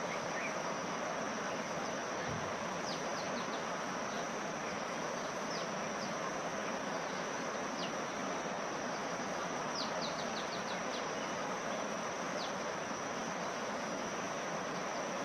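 Small birds chirping: short, high, downward notes, singly at first, then a quick run of five or six just past the middle. Behind them runs a steady high-pitched drone and a constant background hiss.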